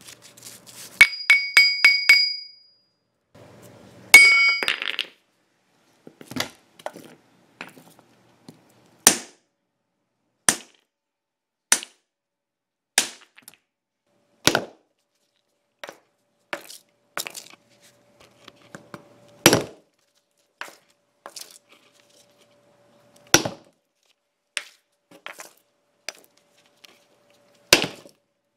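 A hockey puck frozen hard in liquid nitrogen hitting a concrete floor again and again, giving sharp, glassy clinks. Near the start come two clusters of quick ringing hits, followed by single knocks about one to two seconds apart.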